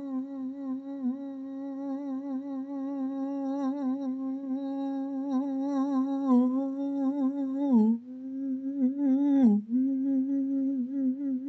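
A person humming one long, steady note with a slight waver. The note sags briefly in pitch twice in the second half, then carries on.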